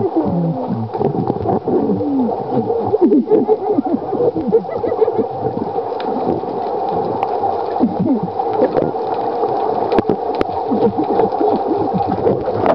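Underwater sound picked up by a waterproof compact camera: a steady watery hum with gurgling and many short squeaky glides, and a few sharp clicks.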